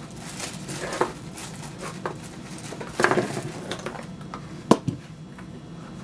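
Hard objects being handled and set down on a workbench, a few scattered clinks and knocks, the sharpest about three-quarters of the way through.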